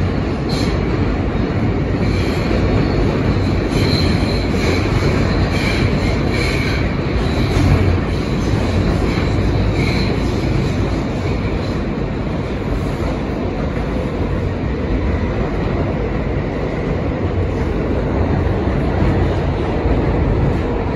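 R160 subway car running at speed through a tunnel, heard from inside: a steady, loud rumble of steel wheels on rail. Through the first half, high-pitched wheel squeal comes and goes.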